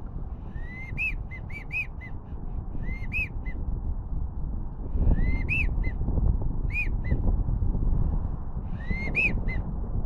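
Wigeon whistle duck call blown in five quick bursts of short rising-and-falling whistle notes, two to six notes per burst, imitating American wigeon. Under it runs a low wind rumble on the microphone.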